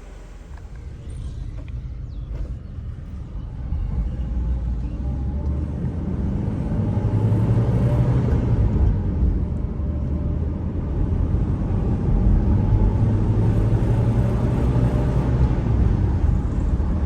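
Mercedes-Benz W124 E220's four-cylinder petrol engine running, growing louder over the first several seconds, with its pitch rising and falling.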